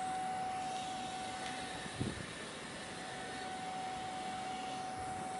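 Forklift running with a steady, even whine as it lowers and carries a heavy milling machine, with one short knock about two seconds in.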